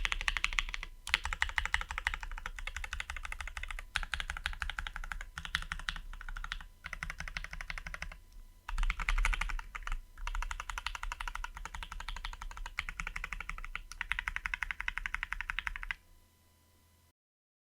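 Typing on an acrylic-case Arisu (Alice-layout) mechanical keyboard with lubed, filmed tactile switches (Durock Koalas / Everglide Oreos) and PBT keycaps: a fast run of keystrokes with a few brief pauses, stopping about a second before the end.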